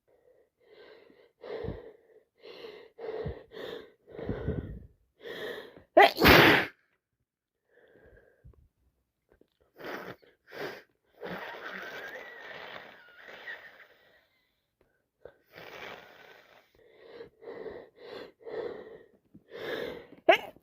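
A person with a heavy head cold sniffing over and over in short bursts, with one loud sneeze about six seconds in. More sniffing and snuffling follow, and near the end a rising intake of breath builds toward another sneeze.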